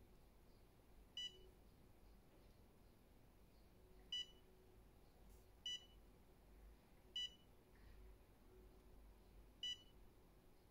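Touchscreen control panel of a Woojamark thermal transfer overprinter giving a short, high key-press beep at each tap of a button, five beeps in all, irregularly spaced one and a half to three seconds apart.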